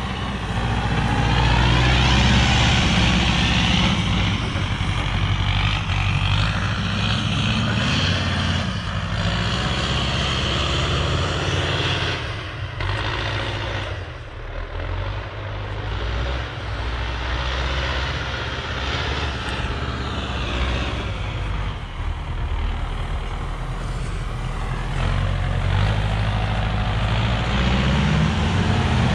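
Hydrema 912 articulated dump truck's diesel engine running as the truck drives through snow. It fades as the truck moves away about halfway through, then grows louder again near the end as it comes back.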